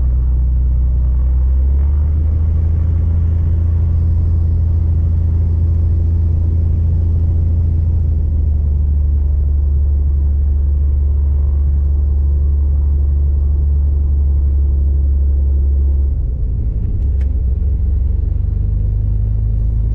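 Beechcraft Bonanza V35's six-cylinder piston engine and propeller running at low power, heard inside the cabin as a steady low drone. The note changes and turns rougher about sixteen seconds in.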